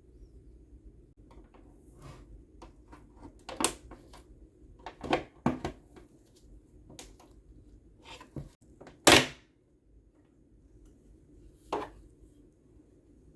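Scattered clicks and knocks of an espresso machine's parts being handled and taken apart, with a sharp knock about nine seconds in standing out as the loudest.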